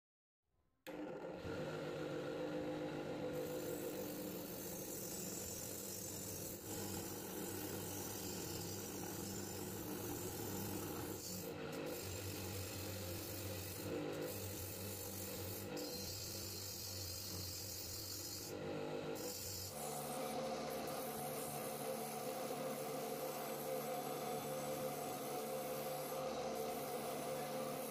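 Bench grinder running, with the metal pan of an antique bed warmer pressed against its spinning wheel to strip rust, a steady rubbing rasp over the motor's hum. It starts about a second in.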